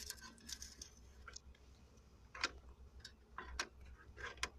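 Faint, irregular clicks and light knocks of small parts being handled, over a low steady hum.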